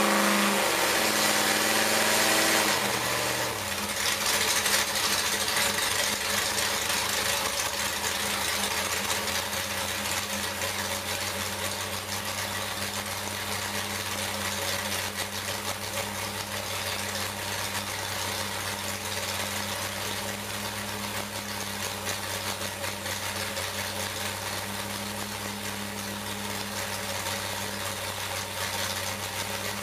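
454 cubic inch small-block Chevy stroker V8 race engine with a solid roller cam, running on a run stand: its revs fall away over the first few seconds after a blip of the throttle, then it settles into a steady idle.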